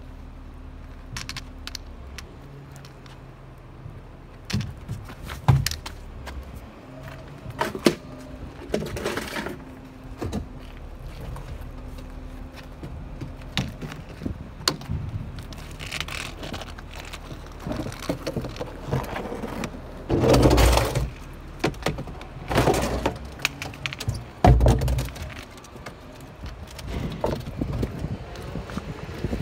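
Garbage truck on a cardboard recycling collection: the engine runs steadily at idle under a string of clunks, knocks and rattles from the collection work, with three loud crashes in the last third.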